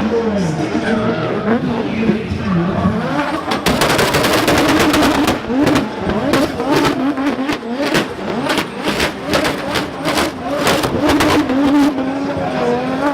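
Toyota 86-X drift car's 2JZ straight-six engine revving up and down hard, with a rapid run of sharp cracks starting about four seconds in.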